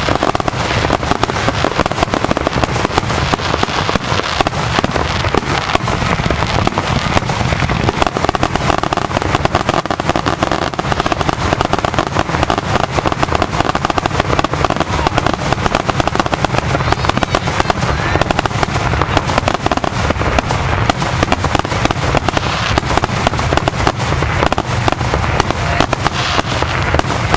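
Aerial fireworks bursting in a dense, continuous barrage of bangs and crackles with no pause.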